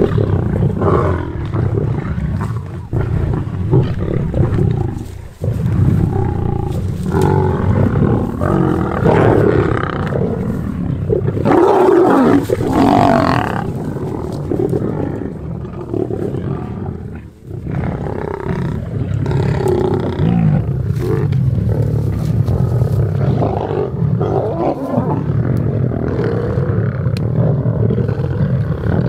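A pride of lions growling and snarling at a kill as they feed and squabble, with a loud outburst about twelve seconds in as a male lion lunges into the group.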